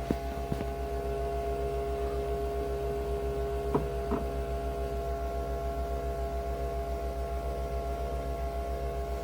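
A steady electrical hum with an evenly pulsing low drone, broken by a few light clicks near the start and about four seconds in.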